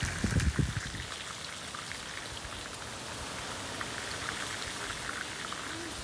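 Chicken thighs frying in a pan over a wood fire: a steady sizzle with many small crackles, and a couple of low thumps in the first second.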